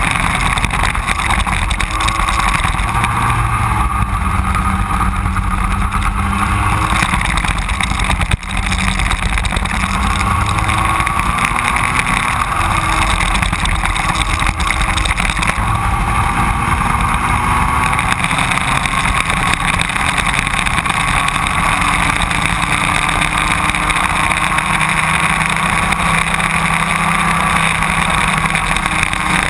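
Racing go-kart engines running hard on track, their pitch rising and falling as the karts accelerate and slow through the corners.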